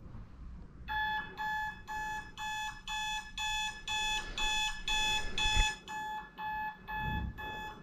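Electronic alarm beeping: a high tone repeated evenly about twice a second, starting about a second in.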